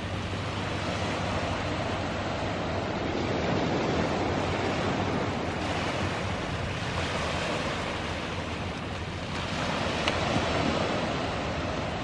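Small waves breaking and washing along a flat shore, with wind on the microphone; the surf swells a little twice.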